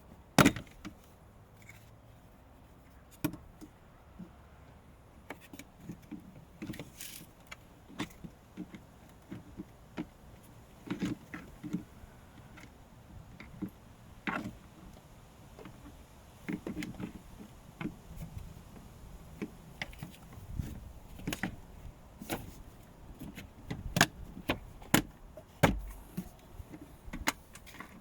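Irregular clicks, taps and knocks, a few a second, from hands handling the Chevrolet Volt's plastic cabin filter cover, trim and screws during reassembly.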